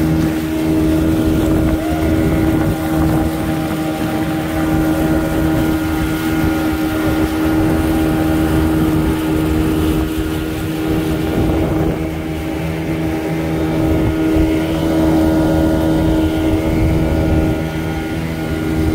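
1982 Evinrude 15 hp two-cylinder two-stroke outboard motor running at about quarter throttle, a steady drone that holds the same pitch throughout as it pushes an inflatable dinghy across the water.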